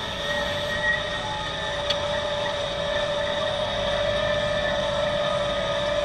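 Deutz-Fahr 7250 tractor running steadily under load while ploughing, with a continuous whine over the engine's rumble.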